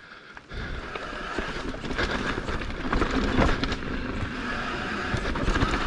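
Mountain bike rolling down a dirt trail: steady tyre and riding noise, with frequent short rattles and clicks from the bike, starting about half a second in.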